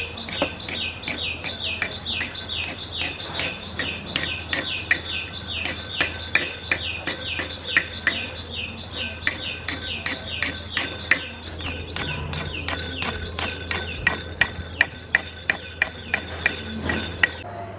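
Knife scraping over the fibrous shell of a soaked whole coconut in quick repeated strokes, about two a second. In the last few seconds these turn into sharper clicking strokes as the blade cuts a groove around the top.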